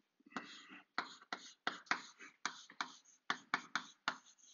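Chalk writing on a blackboard: about a dozen short, sharp chalk strokes in quick, uneven succession as letters are written.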